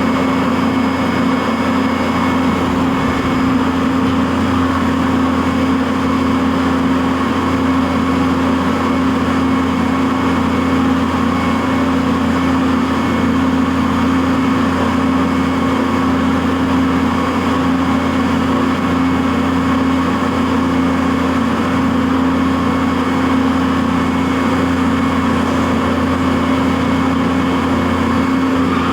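CNC vertical milling machine running steadily while milling Delrin plastic: a constant machine hum with no breaks or changes.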